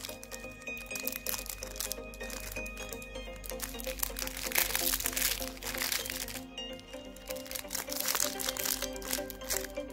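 Crinkling of a jelly lollipop's clear plastic wrapper as it is handled and pulled at to open it, over steady background music. The crinkling grows louder about four seconds in and again near the end.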